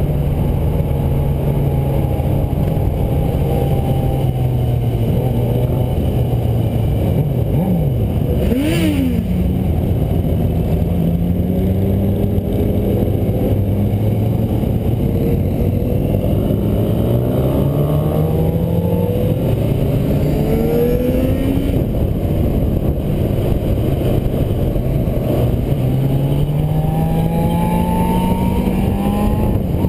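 Motorcycle engine heard from aboard the moving bike, accelerating through the gears: its pitch climbs, drops back at each gear change and climbs again, over a steady rush of wind noise. A brief sharp noise about nine seconds in.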